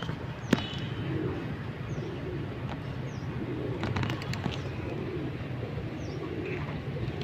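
Flock of feral pigeons cooing, with low warbling calls repeating every second or so over a steady low hum. A sharp click comes about half a second in, and a few more about four seconds in.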